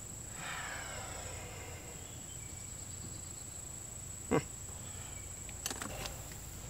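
Steady high-pitched drone of insects, with one short, sharp downward-sliding sound about four seconds in and a few light clicks near the end.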